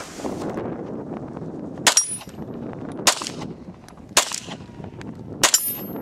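Semi-automatic pistol fired four times at a steady deliberate pace, about one shot a second, two of the shots followed by a brief high ring.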